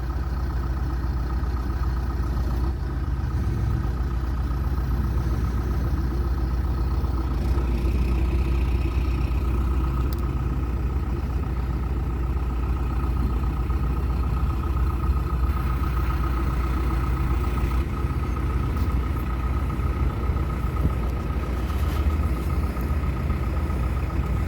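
Diesel engine of a 2005 John Deere 310SG backhoe loader running steadily, with a thin steady whine above the engine hum.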